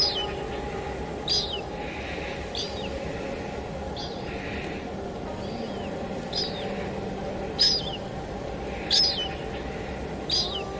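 Steady rain hiss with a small bird giving short, high chirps that fall in pitch, about one a second.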